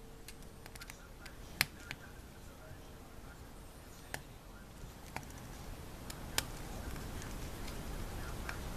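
Small screwdriver clicking against the tiny screws and metal shield plate of an iPhone 4 as the cover screws are backed out: a handful of short, scattered clicks, the sharpest about a second and a half in, over a low steady background noise.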